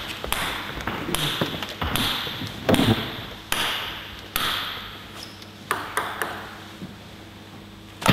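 Table tennis ball bounced repeatedly in the pre-serve routine, a sharp click with a short ring about once a second.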